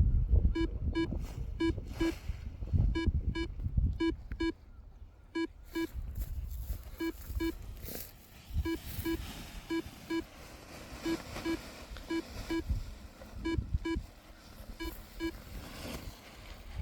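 Paragliding variometer beeping in short pairs of the same pitch, about one pair a second; this is the climb tone, which signals that the glider is rising. Wind rumbles on the microphone underneath, stronger in the first half.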